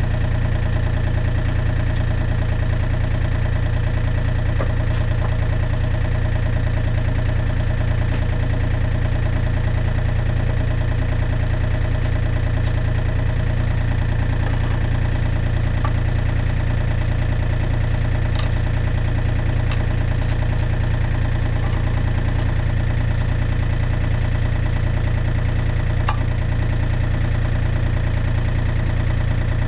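Diesel engine of a John Deere 35D compact excavator idling steadily, with a few faint clicks now and then.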